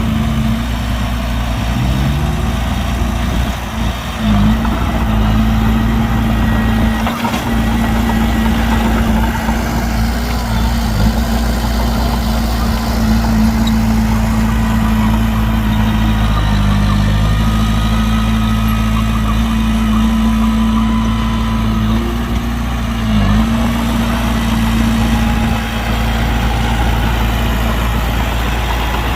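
Heavy diesel engine of earth-moving machinery running steadily and loudly, its pitch dipping briefly now and then as the load changes.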